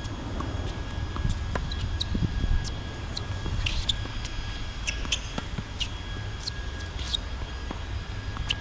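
A tennis rally on an outdoor hard court: sharp pops of racket strikes and ball bounces at irregular intervals, one of them right at the end, over a steady low rumble.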